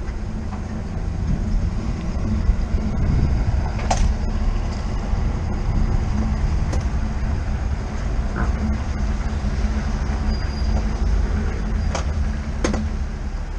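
Flatbed tow truck driving: steady low engine and road rumble heard from its deck, with a few sharp clicks.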